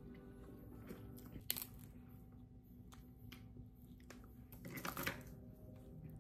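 Quiet handling sounds of a snow crab leg and chopsticks at the table: scattered small clicks and taps, with a brief crackle of crab shell about five seconds in as the meat is pulled out. A faint steady hum sits underneath.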